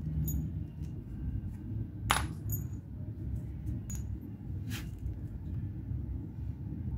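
Small metal engine parts and tools clinking as they are handled during engine assembly: a few sharp metallic clicks with a brief ring, the loudest about two seconds in and another near five seconds, over a steady low rumble.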